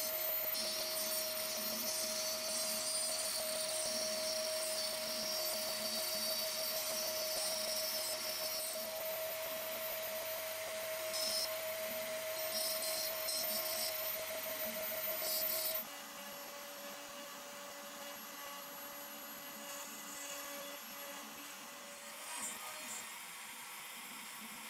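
CNC router spindle running with a steady whine while an end mill cuts lettering pockets into an end-grain hardwood board. About 16 seconds in it switches abruptly to a quieter, slightly lower whine as a 30° V-bit carves at 750 mm/min.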